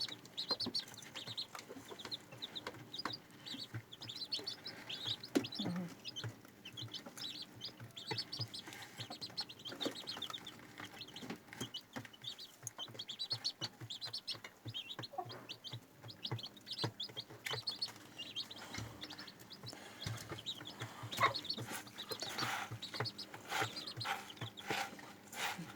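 A brood of four-day-old chicks peeping, short high chirps repeated over and over. Sharp taps and rustles join in over the last few seconds.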